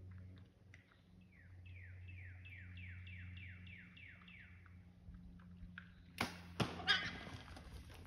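A bird sings a quick run of about a dozen down-slurred whistled notes. About six seconds in, a bow is shot at feral hogs, giving a few sharp, loud thumps from the release and the arrow strike, and the hogs scatter.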